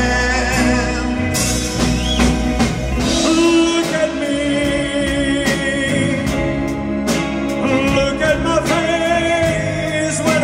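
Live band music: drum kit with cymbals and electric bass guitar under a male voice singing long, wavering held notes.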